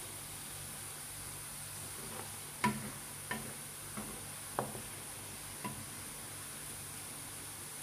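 Minced garlic frying in oil in a frying pan, a steady sizzle, while a wooden spoon stirs it and knocks against the pan about six times, the loudest about a third of the way in.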